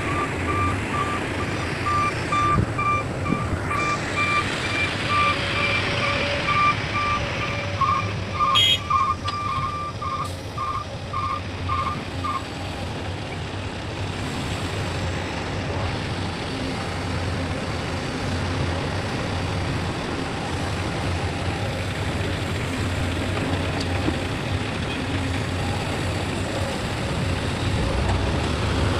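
A heavy vehicle's reversing alarm beeping about once a second, quickening to a faster run of beeps and then stopping about twelve seconds in, over an engine running steadily.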